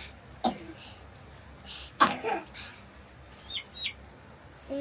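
Two short, sharp vocal bursts from a person, the second about two seconds in and the loudest. Near the end come two quick high chirps from a bird, each falling in pitch.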